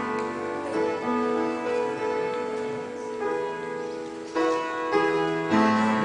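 Instrumental song intro: sustained keyboard chords changing every second or so, with no voice.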